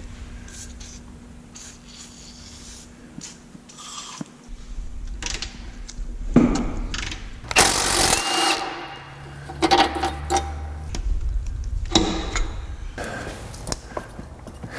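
Tools working on the engine-mount bolts under the car: a ratchet on fasteners with scattered metal clicks and knocks, and a louder clatter of metal parts about six to eight seconds in. A short stretch of a motor-like whir follows, a little past the middle.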